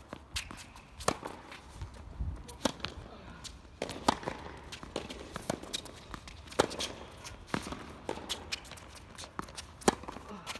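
Tennis rally on a hard court: a string of sharp pops about a second apart as the ball is struck by the rackets and bounces on the court, with footsteps and shoe scuffs between them.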